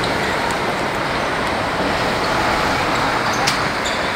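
Steady roar of road traffic, with one sharp knock about three and a half seconds in.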